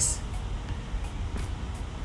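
Steady low background hum, with a faint light click about halfway through.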